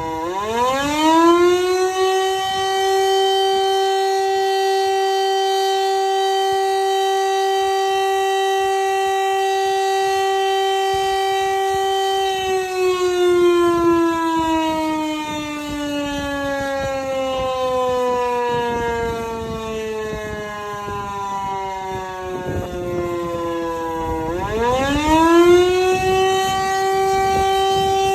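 A Siemens-Halske FM Si 28 electric motor siren from 1928 sounding the fire-alarm signal. It winds up to its full tone near the start, holds it steady for about eleven seconds, slowly winds down in the pause between blasts, and winds up again near the end. The siren has a damaged bearing and grinds slightly as it runs.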